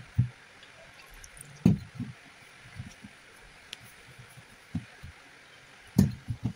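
Hand kneading maida flour with water and oil in a steel pot: irregular dull knocks and bumps of the pot, the two loudest about a second and a half in and near the end.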